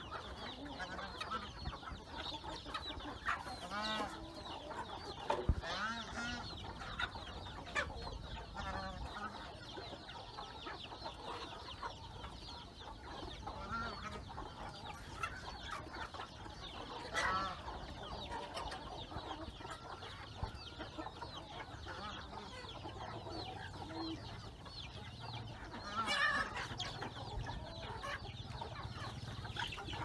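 Flock of chickens clucking steadily while feeding, many short overlapping calls, with a few louder calls standing out now and then.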